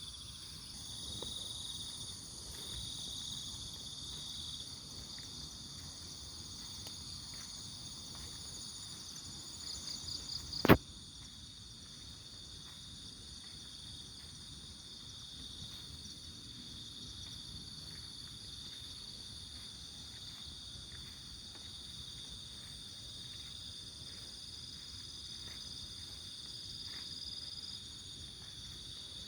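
Crickets and other insects trilling steadily at several high pitches. About ten seconds in, a short run of quick chirps ends in a single sharp, loud click.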